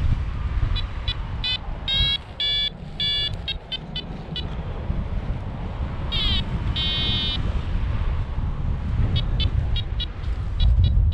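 Paragliding variometer beeping in short, high-pitched beeps, the sign of climbing in lift, with a longer tone about six seconds in. Wind rushing over the microphone makes a steady low rumble underneath, the loudest sound.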